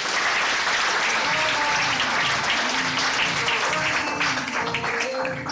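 An audience clapping in a steady round of applause, with music playing under it.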